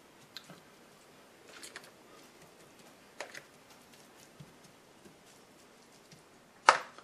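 Faint, scattered soft taps and pats as cooked spaghetti squash strands are pushed by hand from a bowl into a frying pan, with a sharper knock near the end.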